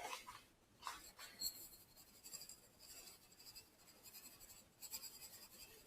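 Near silence, with faint scratchy rustling and a few soft clicks from hands handling kitchen things; one brief click right at the start.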